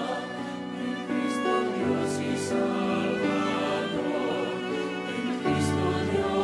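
Hymn music with orchestral bowed strings playing held chords that change every second or two.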